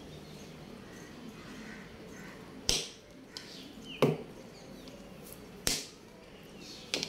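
Four sharp knocks or taps, spaced a second or more apart, over a low steady background hum.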